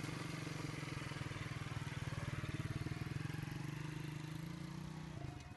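Small motorcycle engine running steadily as the bike pulls away at low speed, fading as it moves off near the end.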